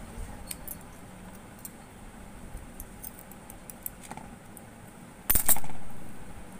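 Hands working a white two-core power lead through the plastic casing of an opened digital weighing scale: light scrapes and small clicks, then one much louder clatter a little over five seconds in that dies away over about a second.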